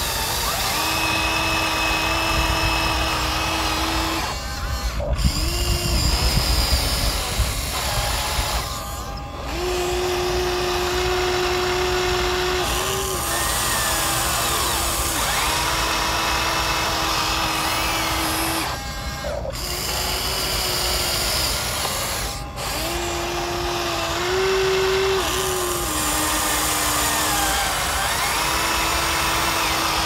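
Small electric motors of a remote-control toy excavator whining as it digs, running in stretches of a few seconds that stop, restart and shift slightly in pitch. A rough low rumble comes through about five seconds in.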